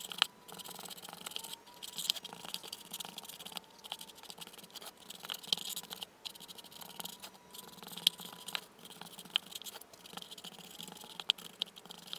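Paintbrush dabbing and scrubbing liquid waterproofing membrane (Laticrete Hydroband) into the inside corners of a foam-board box: irregular scratchy brush strokes with small clicks and taps.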